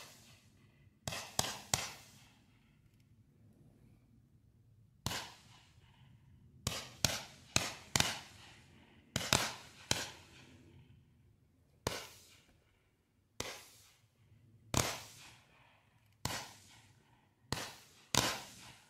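Nico 'Cosmic Smash' 104-shot firework battery (10 mm tubes) firing: about eighteen sharp launch pops at irregular intervals, sometimes two to five in quick succession, each dying away within about half a second.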